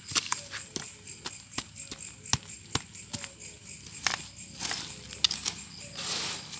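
Soil being worked over a freshly filled grave: irregular sharp knocks, about two or three a second, and two short rustling scrapes near the end. A steady high insect chirp runs behind.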